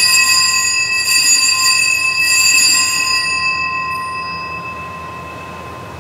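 Altar bell rung at the elevation of the chalice during the consecration. It rings with several clear tones, is struck again about one and two seconds in, then fades slowly.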